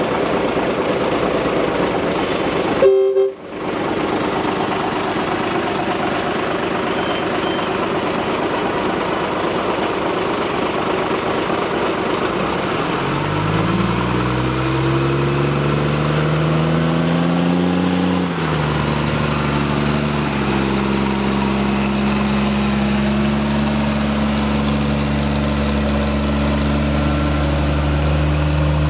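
Narrow-gauge train running past, its coaches rumbling over the track, with a sudden break about three seconds in. Then the diesel locomotive Criccieth Castle's engine rises in pitch over about five seconds and settles into a steady run as it passes close by.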